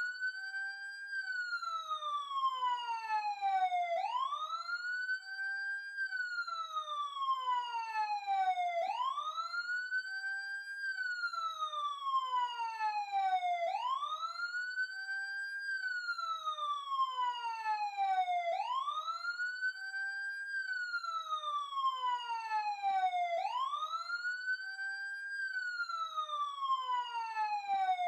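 Emergency siren sounding a slow wail: its pitch sweeps up quickly, then falls slowly, over and over, about once every five seconds.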